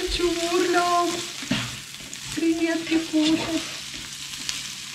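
Shrimp and garlic sizzling in butter in a frying pan while a spatula stirs them, with scattered scrapes and taps of the spatula on the pan. A steady pitched tone is held twice over the sizzle: once at the start and again a little past the middle.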